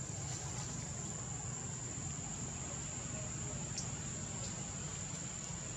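Forest insects calling in one steady, high-pitched drone, over a low rumble.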